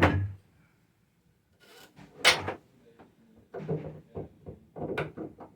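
Knocks and rattles of hard objects being handled, with a sharp clatter about two seconds in and smaller clusters of knocks near the end.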